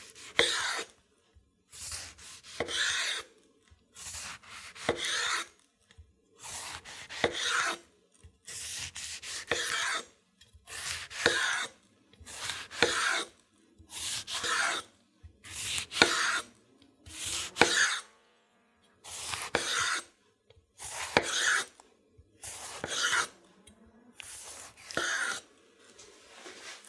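Knife slicing a large ripe tomato into rounds on a wooden cutting board, one slice about every two seconds: each stroke is a brief rasp as the blade saws through the skin and flesh, ending in a sharp knock of the blade on the board.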